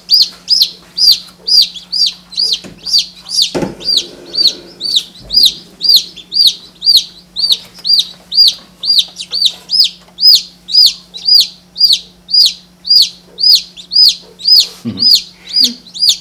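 Newly hatched chicken chick peeping loudly and steadily, about three shrill peeps a second, with a brief knock about three and a half seconds in.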